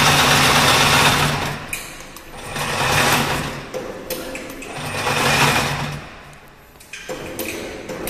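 High-speed wire harness braiding machine running with a steady mechanical whir, winding down about a second in after the stop button is pressed. It then runs in two short spurts, around three and five seconds in, each dying away, followed by a few light clicks near the end.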